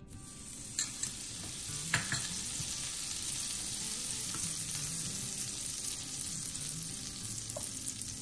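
Butter sizzling as it melts and foams on a hot iron dosa tawa: a steady hiss that starts as the butter goes down, with a couple of light clicks in the first two seconds.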